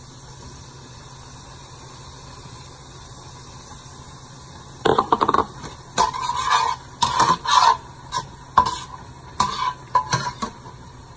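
Butter, garlic and chopped mushrooms sizzling steadily in a stainless steel frying pan. From about five seconds in, a metal fork scrapes and clinks irregularly against the pan as the mushrooms are stirred.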